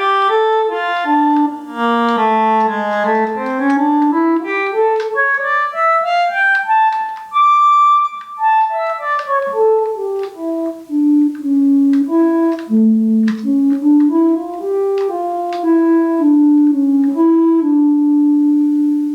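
Soprano saxophone voice of the Travel Sax 2 electronic saxophone playing a solo melody: a run climbing to a high held note about halfway through, then stepping back down and ending on a long held low note.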